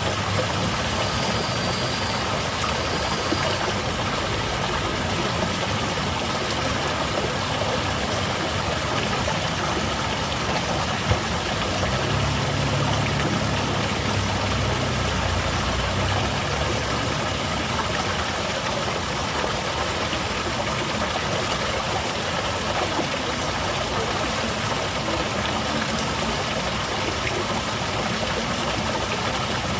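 Small garden waterfall splashing in a steady, even rush of water. A low rumble swells briefly about twelve seconds in.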